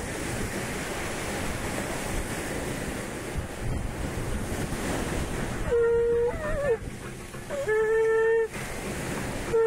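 Surf washing in, with wind on the microphone. From about six seconds in, conch shells (shankha) are blown in held blasts of one steady note, about a second each and repeated, with a shorter wavering note between the first two.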